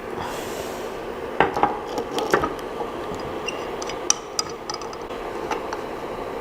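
Light clicks, knocks and rubbing from handling the parts of a Creality LD-002R resin 3D printer, over a steady hum. The sharpest knocks come in a cluster between about one and a half and two and a half seconds in, with one more near the middle.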